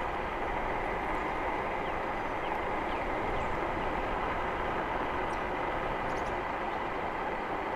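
Jansno X50 electric bike climbing a hill on throttle alone: a steady, even mix of its motor running with a faint steady whine and its street-tread tyres rolling on the road.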